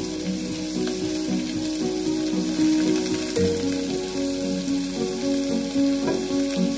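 Shrimp, garlic, onion and dried chilies sizzling in hot sesame oil in a nonstick pan, stirred and pushed around with a spatula, over background music with a soft melody.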